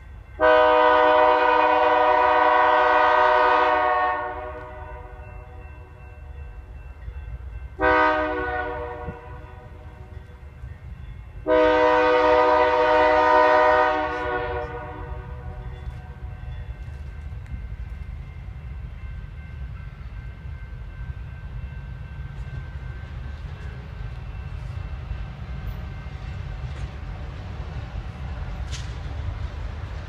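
Diesel locomotive air horn sounding three blasts, long, short, long, with a steady low rumble underneath from the approaching train.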